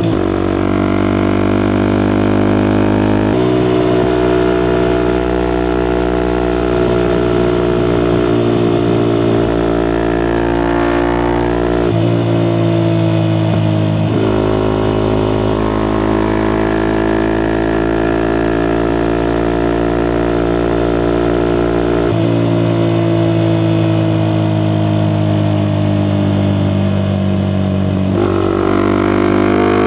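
Suzuki Gixxer SF 250's single-cylinder engine running through a Yoshimura R11 exhaust while riding. The engine note changes sharply several times with gear and throttle changes, sinks slowly in pitch over long stretches, and rises again near the end.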